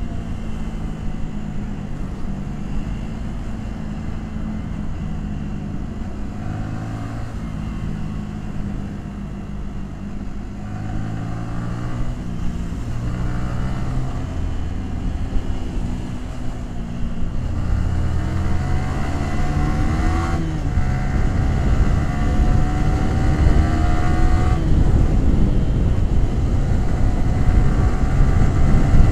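Yamaha R15 V3's 155 cc single-cylinder engine and exhaust, heard from the bike while riding: it holds steady, then pulls through the gears. The pitch climbs, drops at a gear change about twenty seconds in, and climbs again near the end, getting louder.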